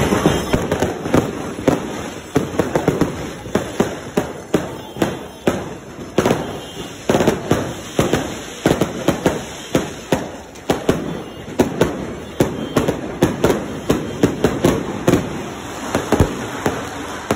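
Firecrackers and aerial fireworks going off in a rapid, irregular run of sharp bangs, several a second, without a break.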